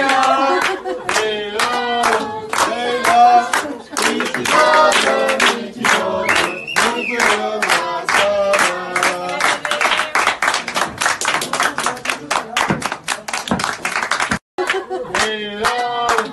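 A group of people singing together while clapping in time, the claps coming faster from about nine seconds in. The sound cuts out for a moment about fourteen seconds in, then the singing and clapping start again.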